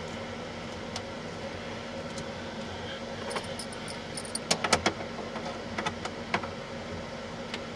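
Small metallic clicks and rattles from hands and a tool working at a blade fuse block's terminals and clear cover, with a quick cluster of sharp clicks a little past halfway. A steady low hum runs underneath.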